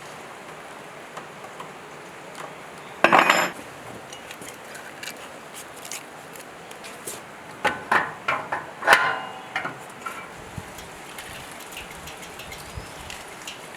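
Metal parts and tools being handled and set down. There is a half-second clatter about three seconds in, then a run of sharp metallic clanks that ring briefly, around eight to nine seconds in.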